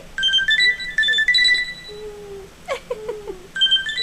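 A phone ringtone plays a melody of high electronic beeping notes, breaks off about two seconds in and starts again near the end. In the gap a dog vocalizes back with a drawn-out howl and a short sliding yelp.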